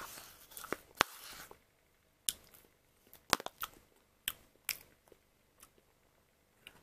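Metal teaspoon scraping and clicking against the inside of a plastic dessert cup as the last of the chocolate mousse is scraped out. There is a longer scrape in the first second and a half, then a string of separate sharp clicks.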